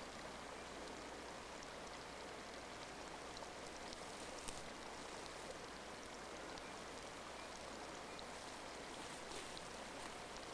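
Faint, steady hiss of running creek water, with a few light ticks scattered through it.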